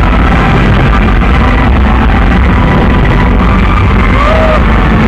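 Loud music overloading the phone's microphone, heard as a dense, distorted, bass-heavy din with no separate bangs.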